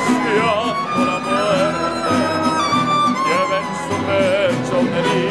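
Mariachi ensemble playing an instrumental interlude: violins with vibrato carry the melody over a steady strummed rhythm.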